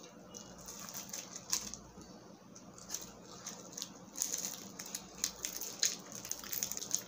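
A small foil wrapper crinkling and crackling as fingers handle and pick at it, in irregular sharp little clicks.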